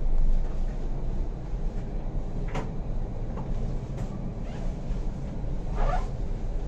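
Passenger lift car in motion: a steady low rumble, with a few brief sharp sounds about two and a half, four and six seconds in.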